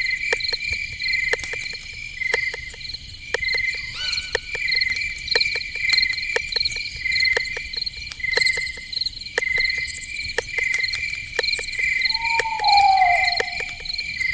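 Night forest ambience of crickets chirping in a steady, regular rhythm over a constant high buzz, with scattered sharp ticks. A short gliding call about four seconds in and a louder falling call about twelve seconds in.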